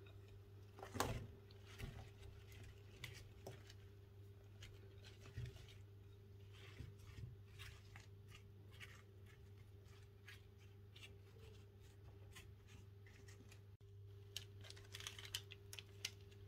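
Faint taps and light clatter of sliced apples tipped from a glass bowl onto a dough base in a springform pan and spread out by hand, with a louder click about a second in and a brief cluster of taps near the end. A steady low electrical hum runs underneath.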